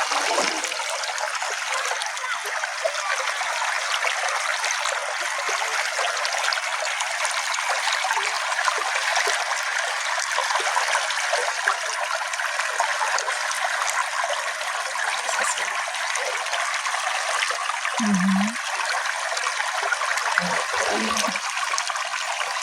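A small natural brook flowing steadily, an even rushing and trickling of water, with a few brief deeper gurgles near the end.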